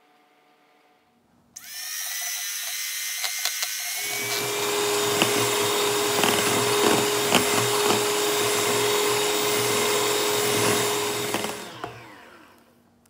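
Electric hand mixer whipping cream in a stainless steel bowl: the motor starts suddenly with a rising whine, runs louder and steady from about four seconds in, with scattered clicks of the beaters against the bowl, and winds down with a falling whine near the end.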